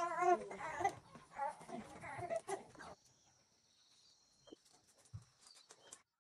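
A young baby crying in wavering, bleat-like wails for about three seconds. The crying cuts off abruptly, leaving only a faint high steady tone and a few small clicks.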